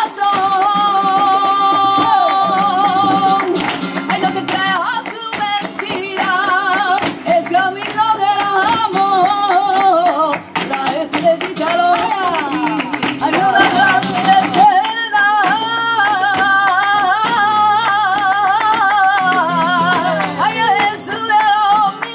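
Live flamenco: a woman singing in long, wavering held lines over acoustic guitar, with sharp handclaps (palmas) and the dancers' heel-and-toe footwork (zapateado) striking through it.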